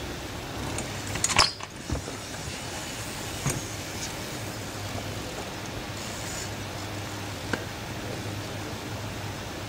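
Steady background hiss with a low hum, broken by a few scattered clicks; the loudest is a short clatter about a second and a half in.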